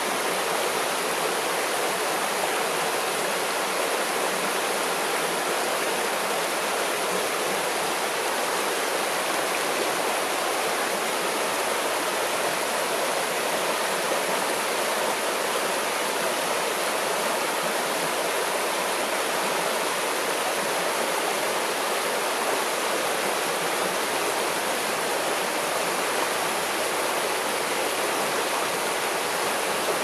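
Shallow river water rushing and gurgling over and around mossy stones, a steady even rush of flowing water with a small cascade spilling over a boulder.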